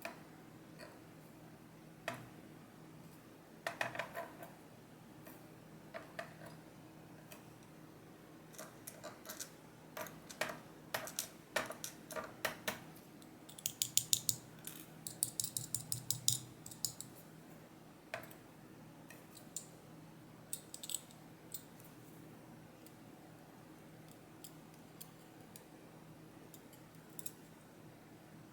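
Small metal lock parts clicking and rattling as a pin-tumbler lock is taken apart by hand. The light clicks come scattered, then in a quick run of clicks about halfway through, over a faint steady hum.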